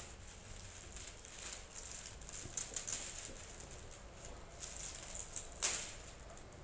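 Wooden spatula stirring and scraping melting sugar around a nonstick frying pan, in irregular soft strokes with a few sharper knocks of the spatula against the pan, the sharpest near the end. This is dry sugar being melted into caramel without water, kept moving so it does not burn.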